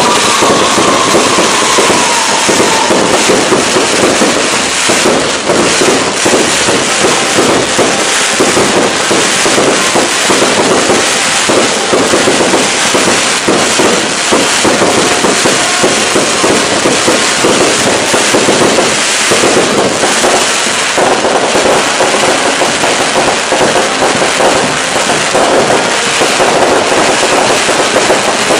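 Daytime fireworks barrage: a loud, continuous, rapid crackle of firecracker and shell explosions going off in quick succession without a pause.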